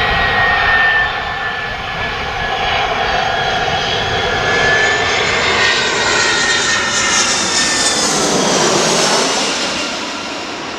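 Jet airliner's engines, an easyJet Airbus A320-family jet, passing close by: a loud, steady jet noise with a high whine, its tone sweeping as the aircraft goes past and then fading near the end.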